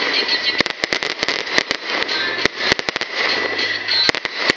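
Aerial fireworks shells bursting: sharp bangs come in quick, irregular clusters over a continuous crackle.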